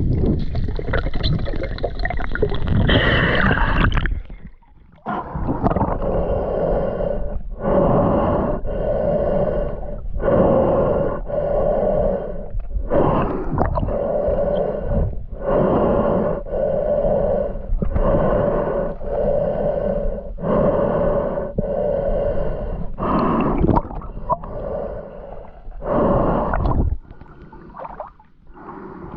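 A swimmer breathing hard through a snorkel, in short rhythmic breaths about one every second and a half, each with a hollow tone from the tube.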